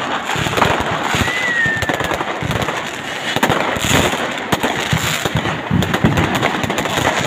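Fireworks and firecrackers going off all around in rapid, irregular bangs and crackles, with a short whistle about a second in.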